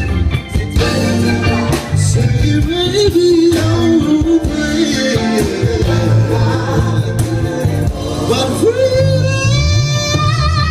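Live band playing a song with several vocalists singing over it: a stepping bass line, drums and guitar under held sung notes, with a singer's wavering run near the end.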